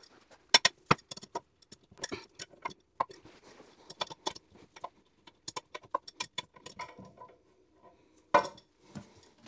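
Irregular metallic clicks and clinks of toilet seat hinge hardware and a tool as the seat bolts are fitted and tightened, with a louder clack about eight and a half seconds in.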